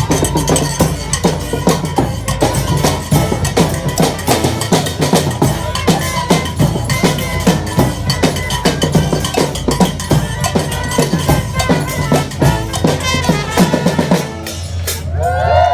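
Street band drums playing a fast, driving beat on bass drum and snare. The drumming stops about fourteen seconds in, and the crowd starts cheering and whooping.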